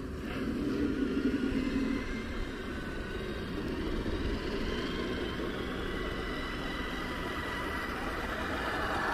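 Radio-controlled scale crawler trucks (Traxxas TRX-4 and TRX-6) driving past on a dirt path, their electric motors and gear drivetrains whining steadily, a little louder in the first two seconds.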